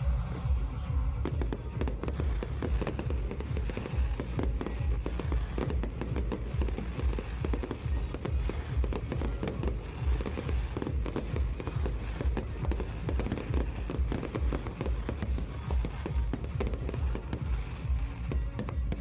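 Fireworks going off in a rapid, dense series of bangs and crackles, starting about a second in, over background music with a steady heavy beat.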